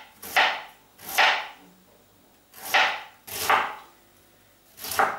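Chef's knife slicing through a raw red cabbage onto a plastic cutting board: five crisp crunching cuts at an uneven pace, as the cabbage is shredded into thin strips.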